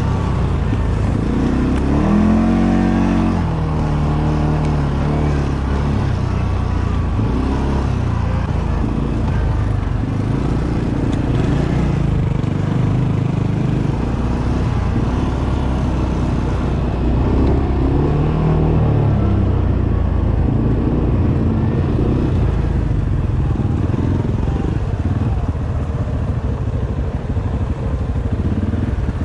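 ATV engine running, its pitch rising and falling several times as the throttle is opened and eased.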